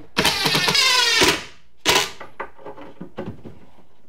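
Ryobi cordless power driver whirring as it drives a screw into a particleboard bookcase panel for about a second, then a second short burst to snug the screw down. Light clicks and taps of screws being handled follow.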